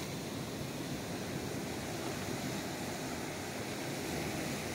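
Steady wash of ocean surf.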